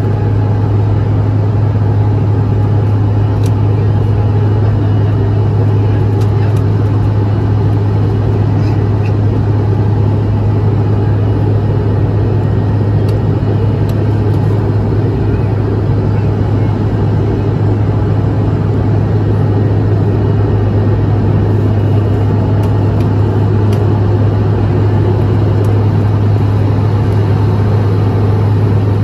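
Airplane cabin noise in flight: the engines' steady, unbroken drone with a strong low hum under a wash of air noise.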